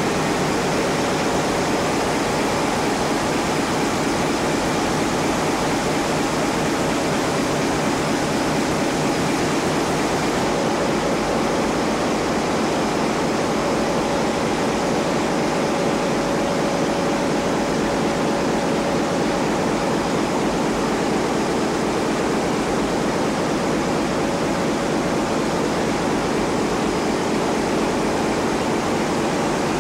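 Ship's engine room machinery running: a loud, steady, even noise with a faint steady hum in it.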